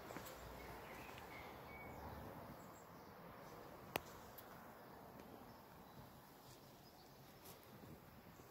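Near silence: faint outdoor ambience with a few faint bird chirps, and a single sharp click about four seconds in.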